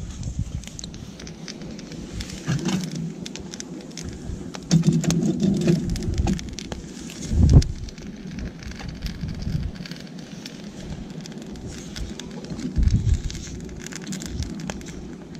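Wood campfire crackling with a dense patter of small pops, over a low gusty rumble. There is a louder knock about halfway through as a cooking pot is handled.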